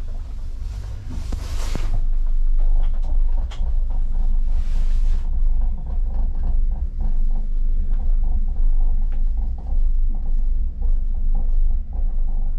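Steady low rumble inside a moving gondola cabin riding the cable, with a few knocks and rattles in the first few seconds.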